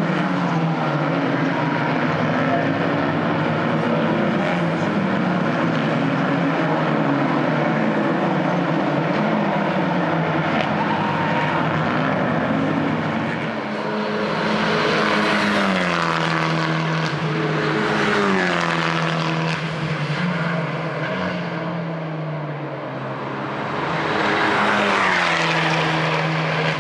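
Abarth 500 Assetto Corse race cars with 1.4-litre turbocharged four-cylinder engines running hard on track, engine pitch climbing and dropping in steps as they shift gears. One car passes louder about halfway through, and another near the end.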